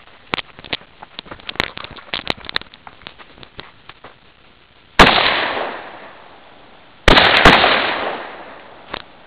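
Two loud, sudden bangs about two seconds apart, each trailing off over a second or so, the second followed closely by a couple more cracks. Light scattered clicks and rustles come before them.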